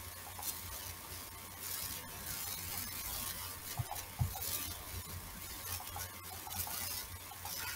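Faint background hiss and crackle from a recording microphone, with two soft low thumps about four seconds in.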